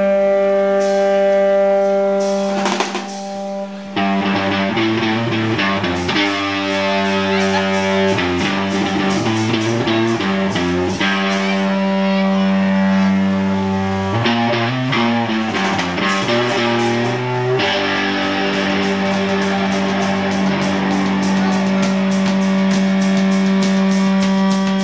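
Live rock band, electric guitar and drum kit. The guitar holds a long sustained note with bends and slides, and the drums come in about four seconds in and keep a beat.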